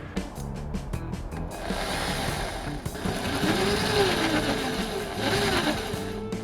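Background music, with a stretch of noisy workshop tool sound through the middle whose pitch rises and falls a couple of times.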